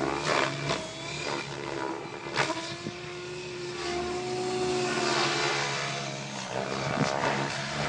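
Radio-controlled model helicopter flying, its rotor and motor making a continuous drone whose pitch shifts as it manoeuvres.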